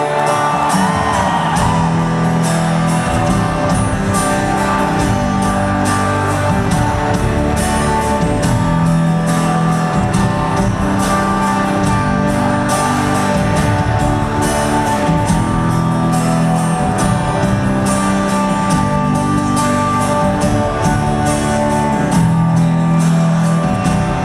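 Rock band playing an instrumental passage with no singing: sustained guitar notes over a steady drum beat.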